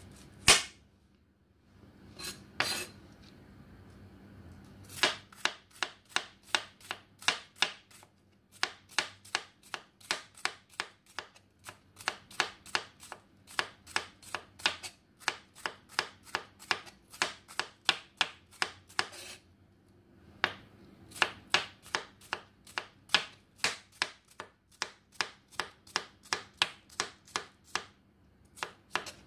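Chef's knife slicing bitter melon (ampalaya) on a cutting board: a few single cuts, then quick, even chops about three a second in two long runs with a short pause between.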